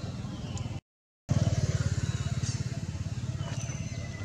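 A motor engine running with a steady low throb. The sound cuts out for about half a second just under a second in, comes back louder, then eases off. Faint high chirps are heard above it.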